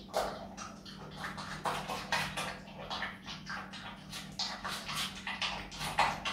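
A Himalayan marmot chewing watermelon: a quick, irregular run of crunching bites, several a second.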